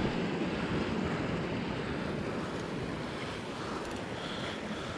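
Steady wash of ocean surf on a cobble and rock shoreline.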